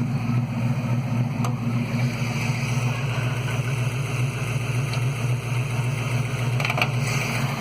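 Modified 1986 Ford Mustang 302 V8 with shorty headers and an H-pipe idling steadily, with a light valve tap that the owner places on the driver's side, around cylinder 1 or 2. A sharp click comes about a second and a half in and a brief clatter near the end.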